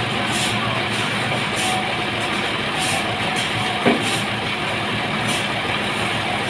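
Sawmill machinery running steadily, with one short knock about four seconds in.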